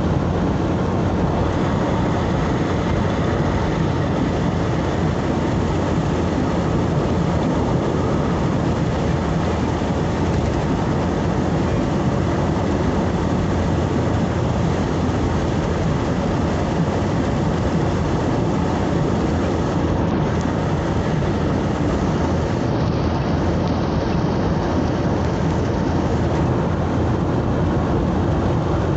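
Steady road and engine noise of a vehicle driving along a highway, heard from inside, a constant low rumble.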